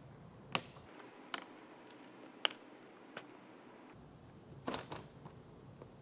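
Plastic retaining tabs of a 2020–2022 Toyota Corolla front grille clicking as they are pressed down and snapped free of the bumper cover. A few sharp clicks about a second apart, then a quick cluster of clicks near the end.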